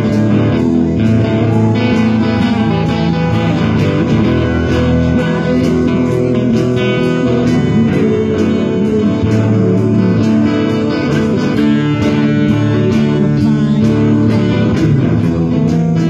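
Live band music: electric guitars playing over a steady beat.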